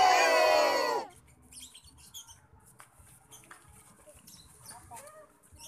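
Loud overlapping voices, like a crowd of shouting children, that cut off sharply about a second in. Then a quiet outdoor background with faint clicks and a few faint chirps.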